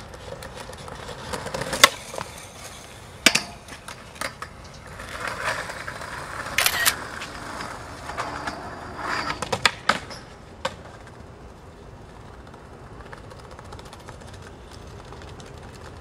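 Skateboard sounds: wheels rolling on concrete, sharp clacks of the tail popping and the board landing, and the board scraping along a metal rail. After about ten and a half seconds only a steady faint hiss remains.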